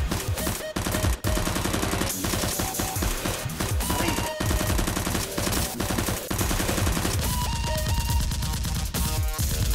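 Rapid gunfire sound effects, many shots in quick succession like machine-gun bursts, dubbed over background music.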